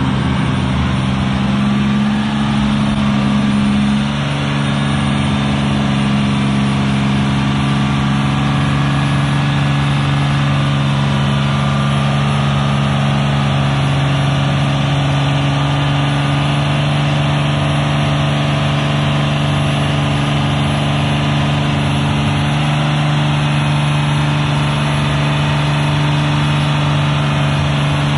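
Cummins turbo-diesel engine of a Dodge Ram 2500 pickup idling steadily, with a slight drop in pitch about four seconds in.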